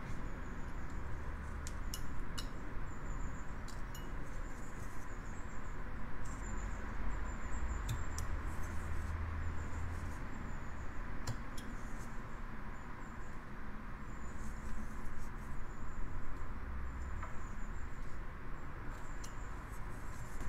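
Carving knife slicing small chips from a basswood block: a scattered run of short, scratchy cuts and light clicks over a steady background hiss.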